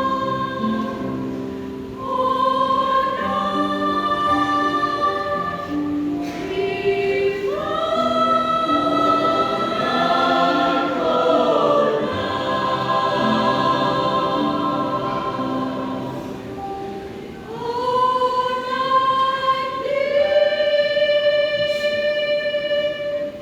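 Church choir singing a gospel song in parts, in phrases of long held notes that swell and fade, ending on a long held chord.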